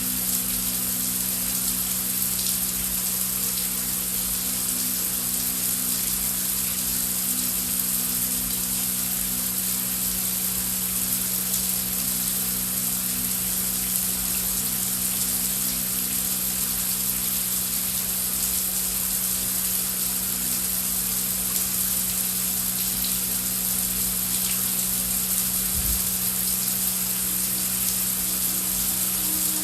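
Heavy rain falling in a steady, even hiss, with a low held drone of background ambience underneath; a further low tone comes in near the end.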